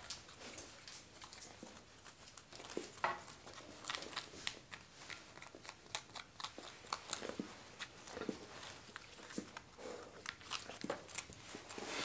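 Irregular small scratches, clicks and crunches of a thin wooden stick scraping and picking at the central hole of a stone millstone.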